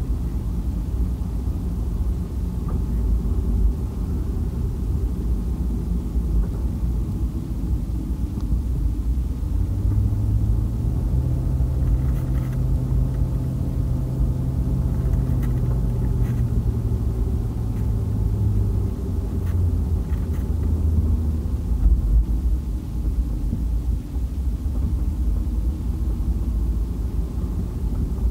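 Road and engine noise heard from inside a moving vehicle's cabin: a steady low rumble, with a steady engine hum for several seconds in the middle.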